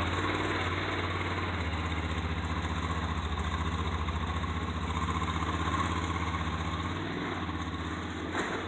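Off-road vehicle's engine running at low, steady revs as it crawls over a rock ledge.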